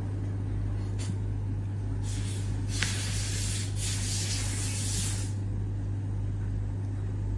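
A steady low hum, with a hiss that starts about two seconds in and stops about five seconds in.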